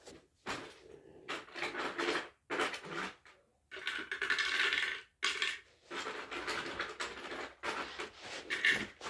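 Loose plastic Lego bricks clattering and rattling as they are scooped into a toy dump truck's bed, in short uneven spells with brief pauses between.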